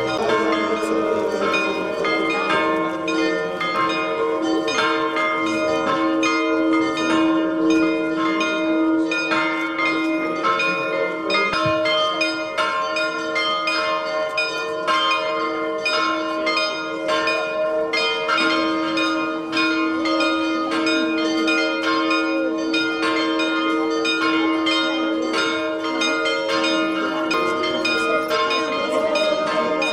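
Church bells ringing in a steady, continuous peal, with rapid repeated strikes over their overlapping ring.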